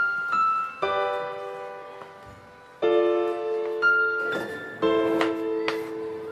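Background piano music: chords struck about once a second, each ringing and fading.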